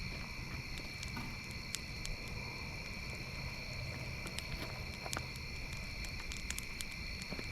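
Campfire crackling with scattered sharp pops, over a steady high drone of night insects.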